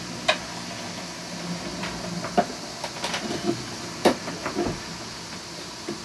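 A handful of short clicks and knocks as a VHF radio handset and a handheld VHF radio are handled, over a low steady background hum.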